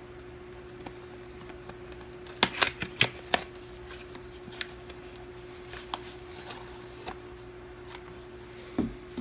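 Small cardboard lens box being opened by hand: a quick cluster of sharp snaps and clicks of the card flaps about two and a half seconds in, then scattered lighter clicks and rustles as a pouch is pulled out, and a soft thump near the end. A steady hum runs underneath.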